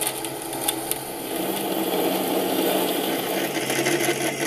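Mini lathe running while a twist drill fed from the tailstock cuts into a spinning stainless steel bar: a steady mechanical whir with the cutting noise. The sound grows a little louder and a steady hum comes in about a second and a half in.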